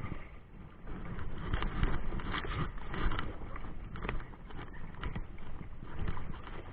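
Wind buffeting the microphone, with irregular light clicks and knocks on top.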